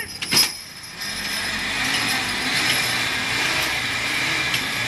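Hydraulic pump of a horse-pulling dynamometer truck whining steadily as the horse team drags the truck, the pump braking it to hold the pulling load. The pump noise comes up about a second in, after a short sharp sound.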